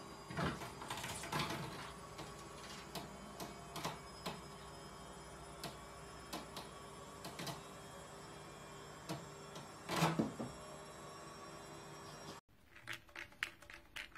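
Scattered knocks and light claw clicks from a cat leaping at and clambering on a wooden fireplace mantel, over a faint steady hum; the loudest knock comes about ten seconds in. Near the end, a quick run of light clicks from a kitten batting a plastic ball-track toy.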